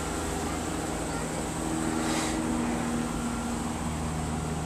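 A steady low engine drone with a few held tones that drift slightly in pitch.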